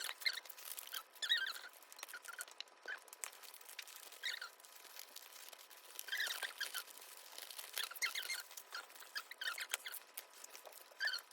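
Plastic packaging rustling and crinkling as it is handled, in irregular bursts of short crackles and squeaks a second or two apart.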